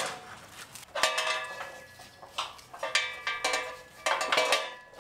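Metal hardware of a tie-down strap clinking and rattling against the steel trailer, in three bursts with a ringing tone after the knocks, as the strap is hooked and worked by hand.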